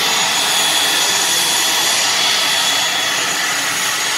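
Turboprop airliner's twin engines running loud and steady, with a high-pitched whine over the propeller noise.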